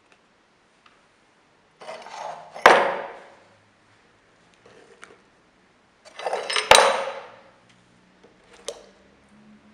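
Metal tools and parts handled on a workbench: two clattering knocks about four seconds apart, each with a sharp strike, and a few lighter clicks between them.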